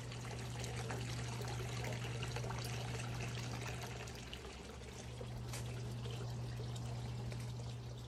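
Outdoor hot tub running: a steady low hum from its pump under water pouring and trickling, with a slight dip about halfway through.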